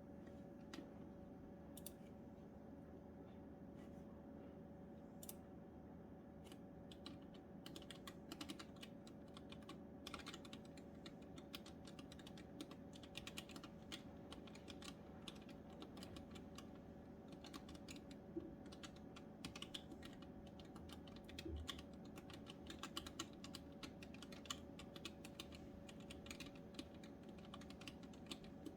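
One-handed typing on the left half of a 3D-printed custom ergonomic keyboard: a few scattered key clicks at first, then steady runs of keystrokes from about eight seconds in, over a faint steady hum.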